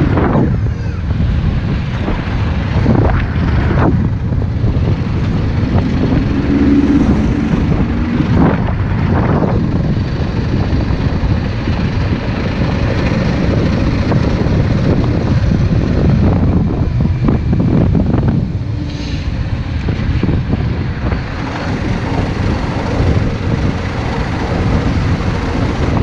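Yamaha Drag Star 650's V-twin engine running under heavy wind noise on the microphone, its revs rising and falling several times in the first ten seconds.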